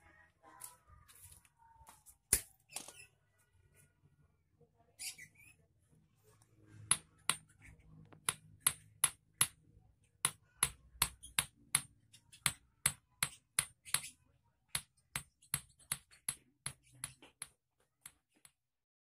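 Small hammer tapping steel wire on a steel anvil block, about three light metallic taps a second for roughly ten seconds, after a few scattered clicks at the start. It is the sound of beating the end of the wire thin to form the point of an eel hook.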